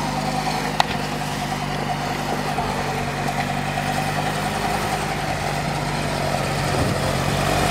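Craftsman gasoline snowblower engine running steadily, with a single sharp click about a second in and the engine growing a little louder near the end.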